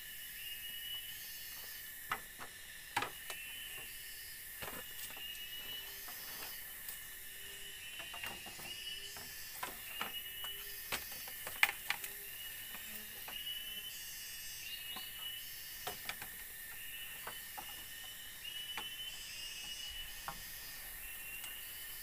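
Bamboo poles knocking and clattering against a bamboo slat floor as they are laid and handled, in a series of sharp irregular knocks with the loudest about halfway through. Under them is a steady drone of forest insects with a short chirp repeating about once a second.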